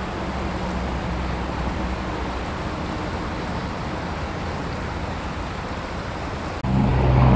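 Steady rush of a shallow, fast river running over rocks. Near the end it cuts off suddenly and gives way to a louder rush with a steady low hum.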